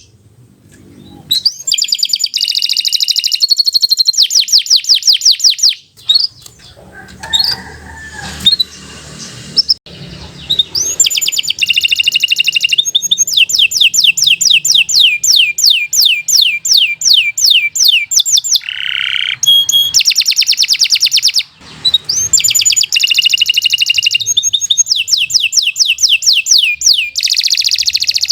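Domestic canary singing long, fast trills of rapidly repeated high notes. There are short pauses near the start and about a quarter of the way in.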